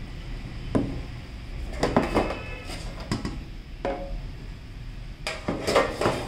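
A thin sheet-metal collector's tin being handled: its lid is lifted off and fitted back on, giving a series of light metallic clanks and scrapes. A brief ring of the metal comes about four seconds in, and a quick cluster of clanks comes near the end.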